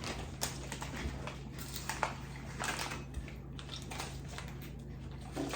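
Scattered soft crunches and clicks of crispy chocolate-filled wafer bites being bitten and chewed, over a faint steady low hum.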